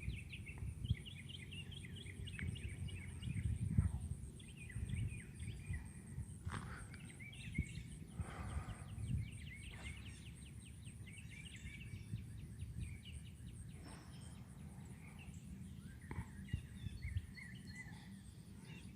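Distant songbirds singing, many short chirps and trills from several birds, over a low background rumble.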